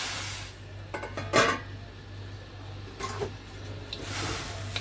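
Metal plate and utensil clanking against a steel wok as chicken wings go into boiling water. There are sharp knocks about a second in, the loudest just after, and another around three seconds, over a hiss that fades early.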